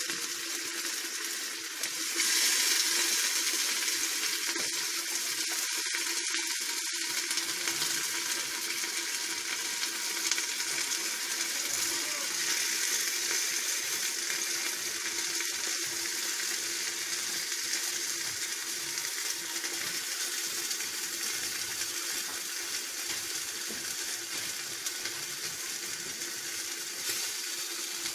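Raw mutton pieces sizzling in hot oil with onions in a clay pot, a steady hiss that jumps louder about two seconds in.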